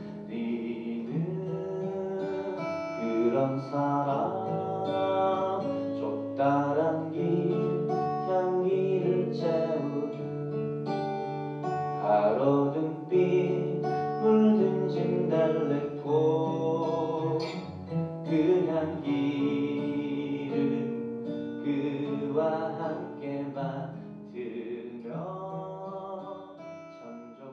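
Acoustic guitar played live, strummed and picked through the song's closing passage, fading out near the end.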